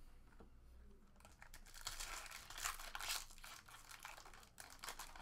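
Foil wrapper of a trading-card pack being torn open and crinkled by hand, a crackling rustle that is loudest from about one and a half to three and a half seconds in, with a few sharp crinkles near the end.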